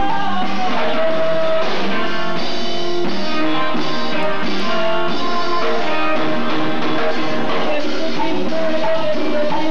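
Live band playing Latin dance music: electric guitar and a sustained lead melody over a steady accompaniment.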